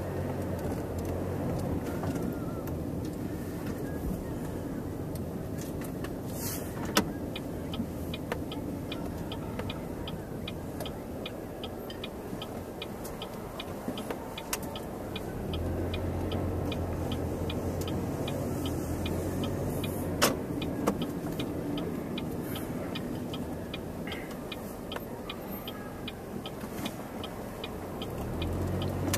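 Chevrolet Cobalt driving, heard from inside the cabin: steady engine hum and road noise, with the engine note rising about halfway through. From about a quarter of the way in, a light, regular ticking runs underneath.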